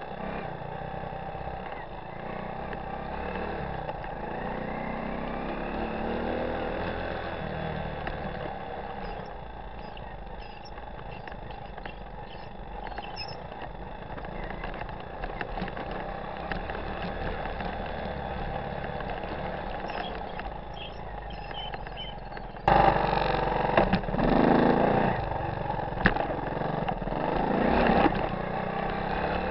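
The single-cylinder four-stroke engine of a 1985 Honda ATC 125M three-wheeler runs under way, its pitch rising and falling with the throttle. About three quarters of the way through, a sudden, much louder rough rumbling comes in over it and swells several times.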